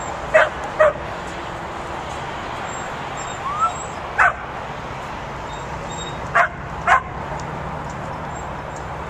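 A dog barking in short, sharp yaps that mostly come in pairs: two near the start, one about four seconds in, and two more near the end, over steady background noise.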